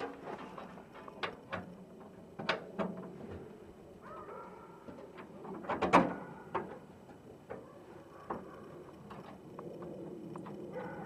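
Scattered clicks and knocks of hand tools and parts being worked under a truck, the loudest about six seconds in.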